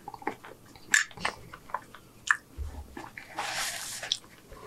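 Close-miked chewing of hamburger steak, with a few sharp mouth clicks. About three and a half seconds in, a paper napkin rustles for under a second.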